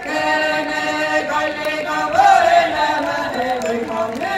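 A large group of singers chanting a Seto folk song, voices holding long notes together in a chant-like style.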